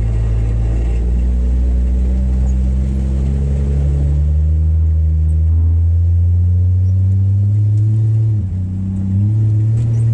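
1962 Rambler Classic's engine pulling hard as the car accelerates at full throttle, its pitch climbing slowly. About eight and a half seconds in there is a brief dip in pitch and loudness, then the pitch climbs again.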